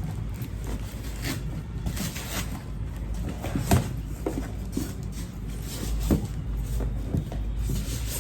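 Parcel packaging being handled and opened: irregular rustling and crinkling with short clicks, and two sharper knocks a few seconds apart.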